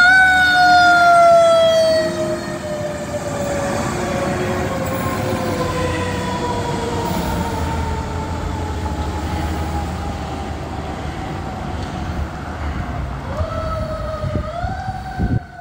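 A fire ladder truck's siren winding slowly down in pitch as the truck pulls away, over the low rumble of its engine. The siren is loudest in the first two seconds and fades as the truck recedes. Near the end it winds up again in two rising steps.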